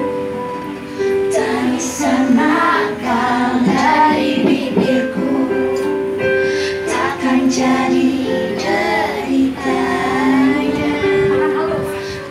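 A group of children singing a song together over a backing track of instrumental music with held notes.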